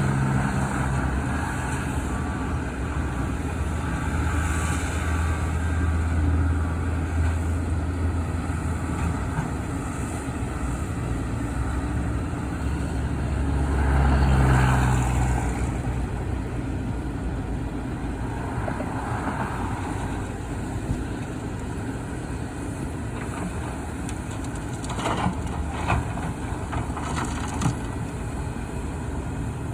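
Heavy diesel engines of construction vehicles running with a steady low rumble, which swells about halfway through. A few sharp knocks or clanks come near the end.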